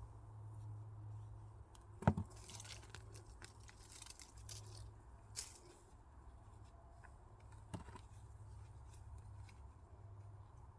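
Hand work with food and kitchen things: a sharp knock about two seconds in, followed by a brief rustle, then a few lighter clicks and taps, over a steady low hum.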